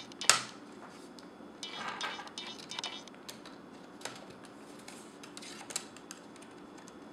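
Plastic screen bezel of a Sony VAIO laptop being pried off by hand: a sharp snap about a third of a second in, the loudest sound, then a run of crackling plastic clicks and a few more single clicks as the bezel's clips come loose.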